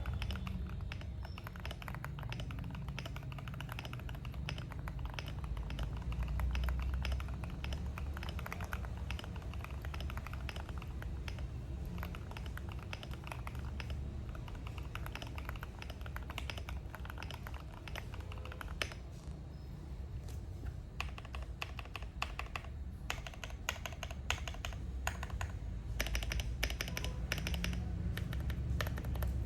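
Fast, continuous typing on a Tofu65 mechanical keyboard with new keycaps, a dense stream of keystrokes with a creamy sound, easing off briefly about two-thirds of the way in.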